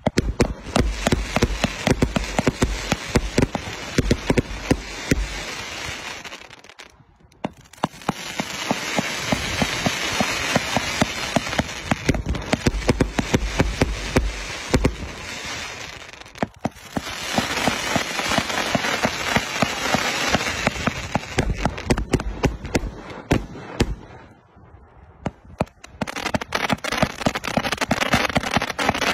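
ShanZao 'Flower King' 520-shot fireworks cake firing, shots launching and bursting in fast succession. The barrage comes in long sequences broken by a few brief lulls.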